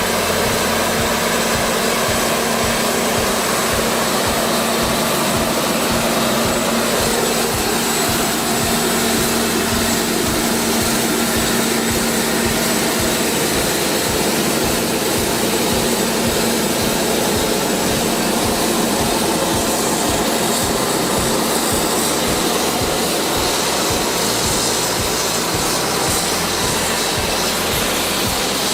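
Logging truck's engine running steadily under background music with a regular low beat.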